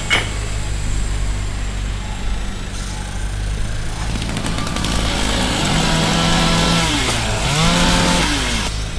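A petrol chainsaw comes in about four seconds in, revving and cutting through a log. Its engine pitch sags as the chain bites into the wood and climbs again as it frees up.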